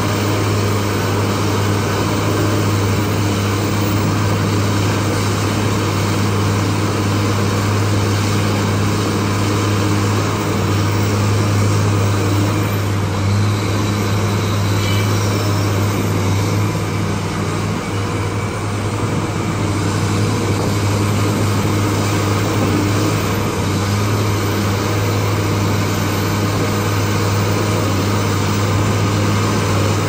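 Large Caterpillar hydraulic excavator's diesel engine running steadily under load as it digs, a constant low drone.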